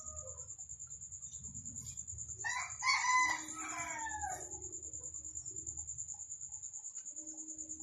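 A rooster crowing: the tail of one crow fades out at the start, then a full cock-a-doodle-doo comes about two and a half seconds in, falling away at its end. A steady high whine sits underneath.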